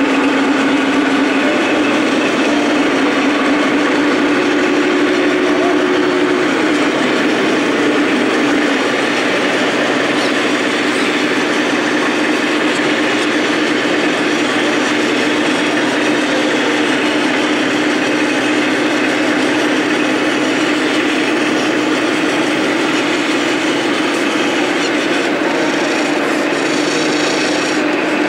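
Steady engine-idle sound from a radio-controlled DAF XF truck's electronic sound module: an unbroken drone with a constant hum, no revving.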